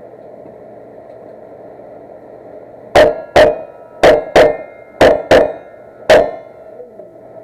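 Seven pistol shots from a 1911-style .45 ACP, fired as three quick pairs about a third of a second apart and then a last single shot. Each shot is followed by a brief ring, like steel targets being hit.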